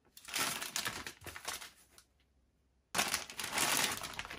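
Clear plastic packaging bags crinkling and rustling as parts are handled and unwrapped, in two spells: one for about the first two seconds, then a second that starts abruptly about three seconds in.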